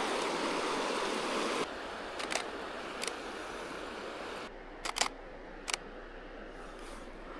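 Camera shutter clicking several times: a pair of clicks, a single click, a quick pair of clicks and one more. Behind them runs a steady rushing background that drops abruptly twice.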